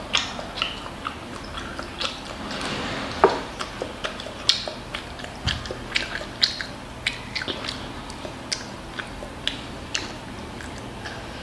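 A child chewing a mouthful of fried rice, with irregular wet mouth clicks and smacks.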